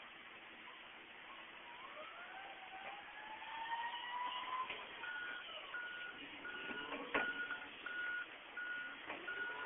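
A truck's engine rising in pitch as it speeds up, then a reversing alarm beeping steadily, about one and a half beeps a second. A single sharp knock about two-thirds of the way in.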